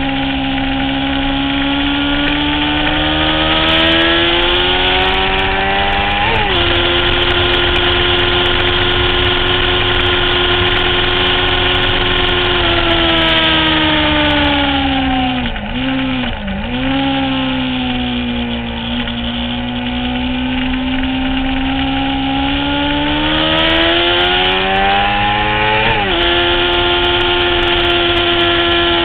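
Honda CBR600F4i's inline-four engine heard from on board at track speed, with wind rush. The engine note climbs and snaps down on an upshift about six seconds in. Around the middle it falls, with a couple of quick dips, as the bike slows and downshifts for a corner, then climbs again to another upshift near the end.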